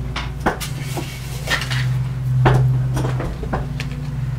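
Knocks, clicks and a short rustle of hard plastic parts being handled on a desk during a UPS battery swap, over a steady low electrical hum.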